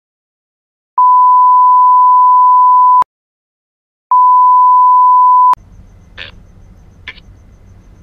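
Censor bleep: a steady 1 kHz tone sounds twice, about two seconds and then about a second and a half, with the audio muted to dead silence before and between them. After the second bleep the faint background noise returns, with a few short sounds.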